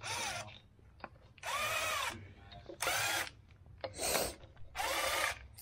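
Red cordless power driver spinning in five short bursts about a second apart, its motor whine rising and falling each time, as it runs in the bolts of a boat engine's water pump being refitted.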